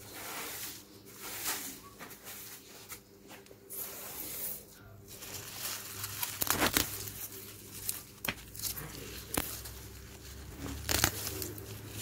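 Push broom sweeping soil and dead leaves across concrete in short strokes. From about halfway, weeds are pulled up by hand, with a few short rips as the roots tear out of the soil.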